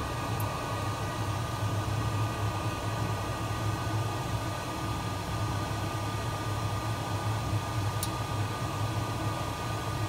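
Steady hiss and low rumble of a gas hob burner heating an enamel mug of liquid that is bubbling and foaming, with two faint ticks.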